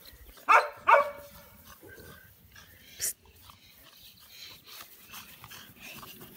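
American bully puppy giving two short barks in quick succession about half a second in, each dropping in pitch, followed by a sharp click a couple of seconds later.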